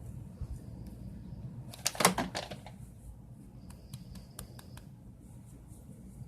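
A pet's loud, short yawn about two seconds in, closing with a sharp clack of the jaws, followed about two seconds later by a quick run of light clicks.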